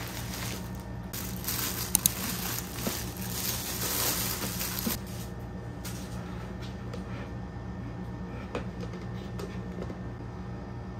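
Hands handling a small plastic desktop dustbin with a swing lid: rustling and a couple of sharp plastic clicks for the first five seconds, then only a few light taps as it is set down on the desk, over a steady low hum.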